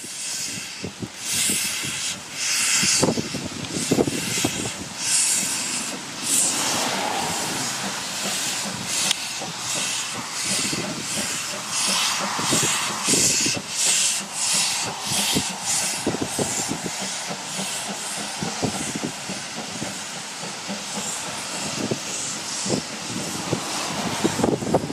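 Narrow-gauge steam tank locomotive moving slowly, hissing steam with an uneven beat of exhaust chuffs.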